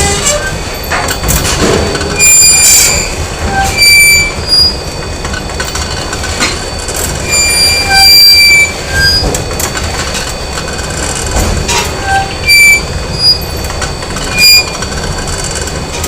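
Factory machinery ambience: a steady low mechanical rumble with frequent short, high-pitched metallic squeals every second or two, several of them louder than the rumble.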